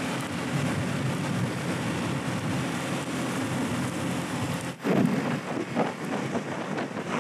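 Wind rushing over the microphone of a 50cc motorbike ride at road speed, a steady wash with the small engine's drone faintly under it. About five seconds in there is a brief dip, then the wind buffets louder and more unevenly.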